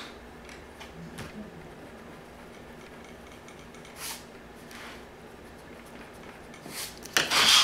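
Faint, sparse scratches of a pencil and paper handling on a sketchbook, then an eraser rubbing on the paper, loudest near the end.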